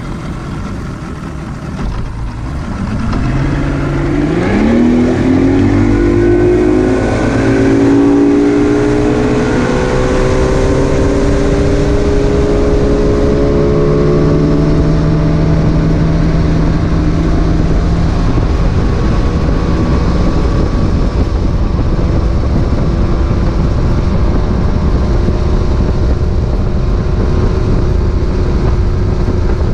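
Boat outboard motor throttling up from idle, its pitch rising over several seconds, then running steadily at cruising speed.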